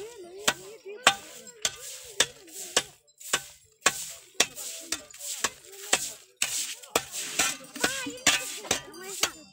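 Sharp strikes at a steady beat of about two a second, with voices chanting over them in a wavering line.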